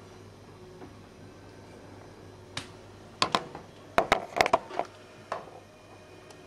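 A run of sharp clicks and light knocks, starting about two and a half seconds in and thickest about a second later, over a low steady hum.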